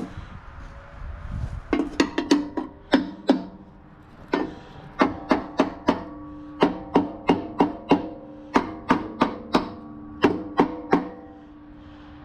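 Steel riding-mower deck struck repeatedly, probably with a hammer while trying to free a stuck blade: about two dozen irregular blows, each leaving the deck ringing at the same pitch.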